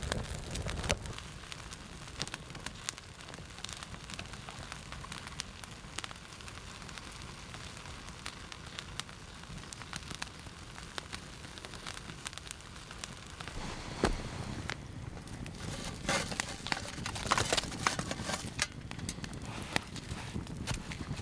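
Campfire of dry twigs and sticks burning, crackling and popping throughout. There is a low rush of flame in the first second, a sharp snap about 14 seconds in, and denser, louder crackling over the last several seconds.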